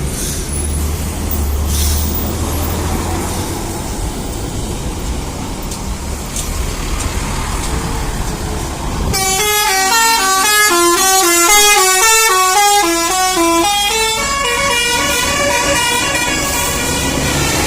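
A bus engine running with road noise and a low drone. About halfway in, a Basuri-type telolet bus horn starts playing a fast melody of stepping notes, several tones at once. A few seconds later it changes to a quicker pattern of shorter notes.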